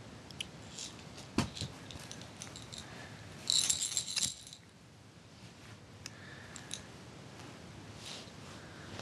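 A short metallic jingle lasting about a second, starting about three and a half seconds in, among scattered light clicks and rustles.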